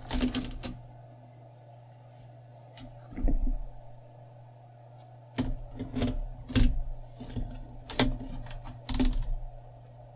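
Clicks and knocks of hands handling a laptop's screen parts and small plastic connectors, in short clusters a second or two apart, over a steady low hum.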